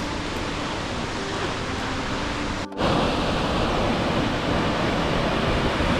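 Steady rushing noise of a large waterfall. About three seconds in it cuts briefly and comes back louder.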